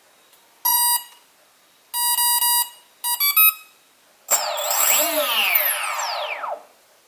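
Brushless motor on a BLHeli ESC sounding its beep tones as the battery is connected: a short beep, a longer beep, then three quick rising notes. Then the motor spins the propeller for about two seconds, with a whine that falls in pitch before it stops.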